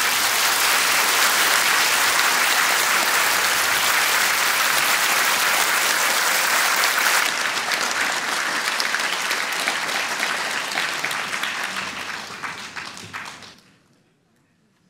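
Audience applauding, a dense wash of clapping that thins out and dies away near the end.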